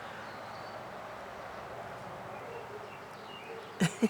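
Steady outdoor background hiss with a few faint, short, high chirps. A sharp click comes near the end.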